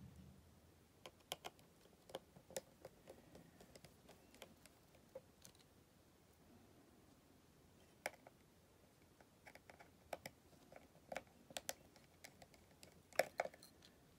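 Faint, scattered small clicks and ticks of a tri-point (Y) screwdriver working the tiny screws of an iPhone 8 Plus's connector bracket, with a louder cluster of clicks near the end.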